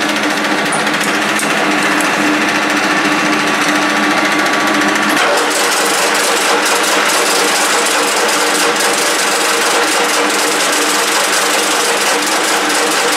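A Soviet 1K62 screw-cutting lathe running steadily, its geared headstock giving a machine hum and whine made of several steady tones. About five seconds in, one higher tone drops out and the sound shifts slightly.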